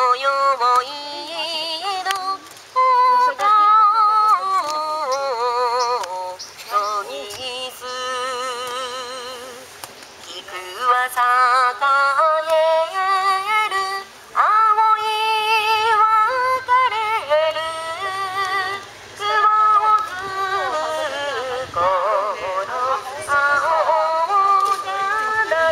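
A solo voice singing unaccompanied: long held high notes with heavy wavering vibrato, in phrases broken by short pauses.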